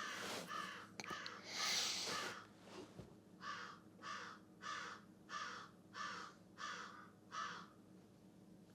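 American crows cawing, a steady run of evenly spaced caws, roughly one and a half a second, with a short burst of hissing noise about two seconds in.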